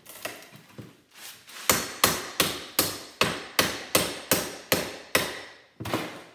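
Hammer blows on a microwave-oven part clamped in a bench vise: a few light taps, then a rapid, even run of about ten sharp blows, roughly three a second, and one more blow near the end.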